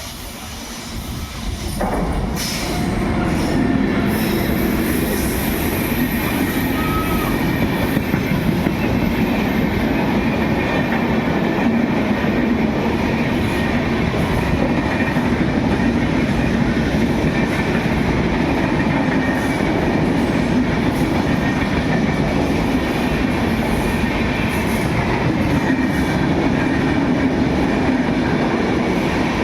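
Passenger train hauled by a WAP7 electric locomotive running by on the track: a steady, loud rumble of wheels on rails that builds up over the first two seconds and then holds.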